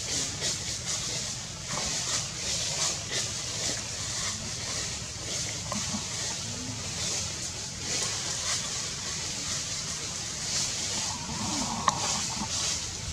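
Outdoor ambience: a steady high hiss with frequent small rustles, and one sharp click near the end.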